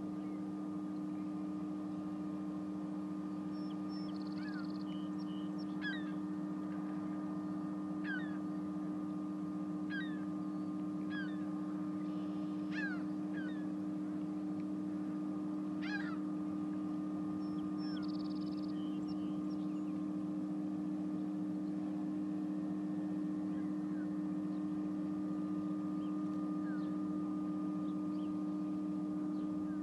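Steady low machinery hum, with about half a dozen short bird calls that each fall quickly in pitch, most of them in the first half.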